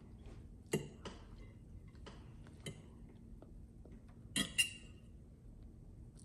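Metal fork clinking and tapping against a square ceramic plate while eating, a few separate clinks with the loudest pair about four and a half seconds in.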